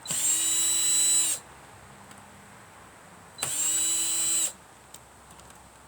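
Power drill driving out old screws from vintage electronics casing: two bursts of about a second each, the motor whine spinning up quickly and holding steady, with a pause between.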